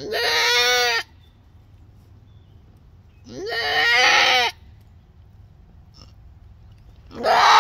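Boer–pygmy cross doe goat in labor with her first kid bleating loudly three times, each call about a second long, the third starting near the end. These are her cries while straining to deliver.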